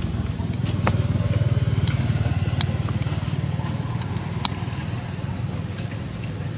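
A steady low engine hum that swells a little about a second in, over a constant high-pitched hiss, with a few faint clicks.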